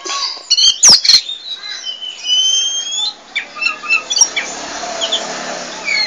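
Caged Oriental magpie-robin (white-bellied 'kacer poci' form) singing: high whistled slurs and quick chirps, with a sharp click about a second in and harsher, noisier notes in the second half.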